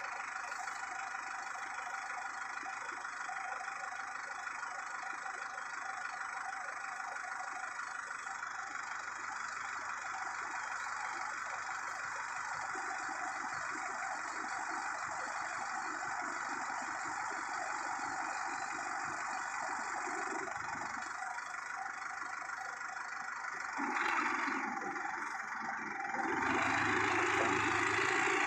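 Tractor engine idling steadily, growing louder a few seconds before the end.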